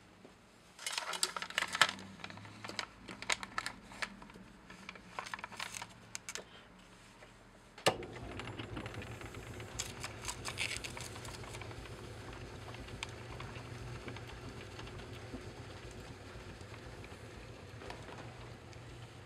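Ampico reproducing player piano being readied: irregular clicks and rattles from the roll mechanism and controls, then about eight seconds in a sharp click and a steady hum as its motor-driven pump starts running.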